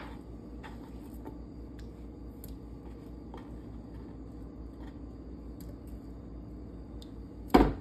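Quiet kitchen handling of diced potatoes on a plastic cutting board: faint small clicks over a steady low hum, then one sharp knock of a knife on the board near the end.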